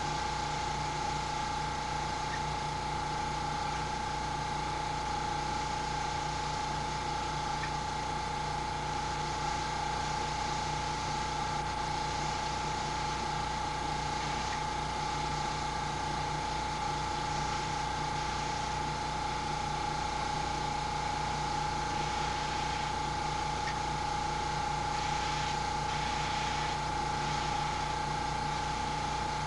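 Airbrush air compressor running steadily with a constant high whine, and air hissing through the airbrush as the paint is sprayed.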